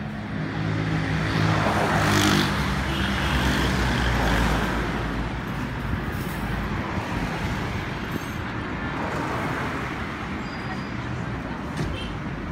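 Road traffic: a motor vehicle drives past close by, with a low engine hum that is loudest about two to four seconds in, then fades into steady traffic noise as more cars approach.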